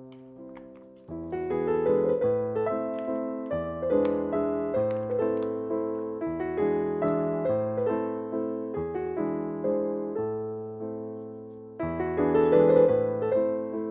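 Background piano music, notes struck at an even, unhurried pace; it grows louder about a second in.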